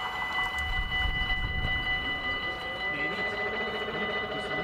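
Dutch level-crossing warning bell ringing steadily while the red lights stay on after the train has passed. From about three seconds in, the barrier drive adds a low, wavering hum as the booms start to lift.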